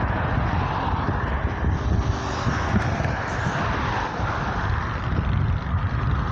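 Jet engines of a Ryanair Boeing 737 running at taxi power, heard as a steady rushing whine, with wind rumbling on the microphone.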